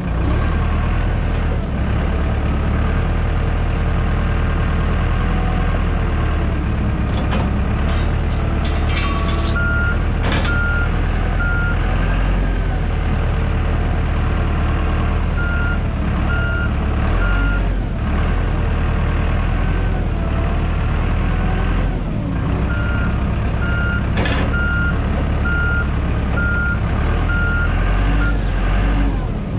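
Heavy-equipment diesel engine running steadily, with a reversing alarm beeping about twice a second in several stretches: briefly about a third of the way in, again around the middle, and through most of the last quarter. A few short knocks are heard along the way.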